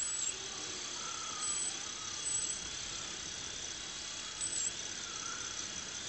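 A synthetic high-pitched whine for the animated rover drill: steady thin electronic tones over a faint hiss, with short warbling chirps about every second.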